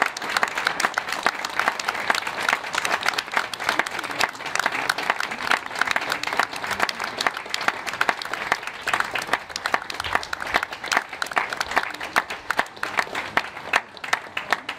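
Audience applauding, the clapping thinning out and fading over the last couple of seconds.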